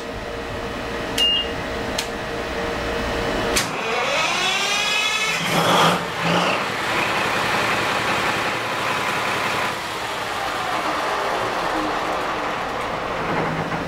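Turbocharged Caterpillar marine diesel main engine being started after its aftercooler was cleaned and refitted. About four seconds in, the starter spins it up with a rising whine. It catches and fires loudly about a second and a half later, then settles into steady running. Before the start there is a steady engine-room hum with a few clicks.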